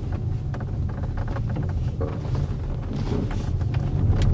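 Interior of an MG S5 EV on the move: a steady low road rumble with frequent small clicks and creaks from the roof area. The owner describes this roof noise as a massive problem.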